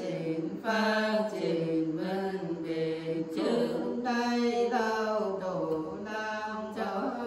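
Unaccompanied women singing a Nùng folk song (hát Nùng) in a slow, chant-like melody, with long held notes that slide up and down between short breaths.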